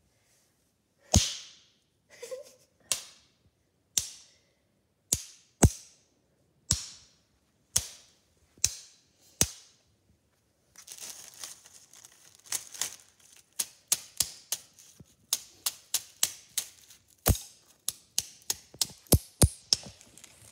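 A small hammer striking a hard-candy lollipop sealed in a plastic zip-top bag on a tile floor, cracking the candy into pieces: single sharp knocks about once a second. About halfway through the strikes come faster, about two a second, with a steady crunching and crinkling of the crushed candy and bag between them.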